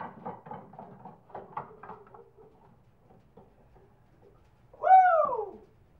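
A quick run of soft knocks and creaks, then about five seconds in a single loud, high-pitched vocal cry that rises and then falls.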